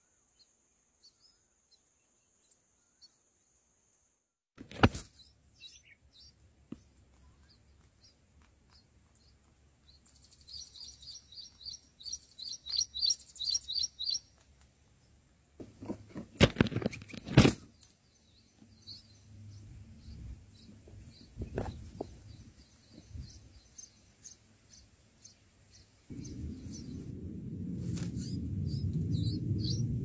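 Short high chirps of red-whiskered bulbuls at a nest with nestlings, with a fast run of chirps midway. Several loud knocks come through, and a low rumbling noise fills the last few seconds.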